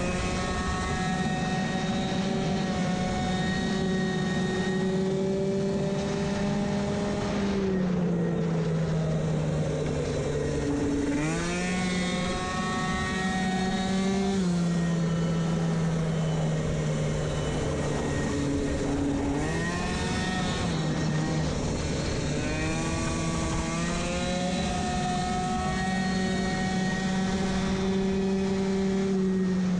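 Two-stroke racing moped with a variator running flat out, heard onboard: a steady high engine note that dips when the throttle is eased about 7 and 14 seconds in and sweeps back up as it reopens around 11 and 19 seconds in.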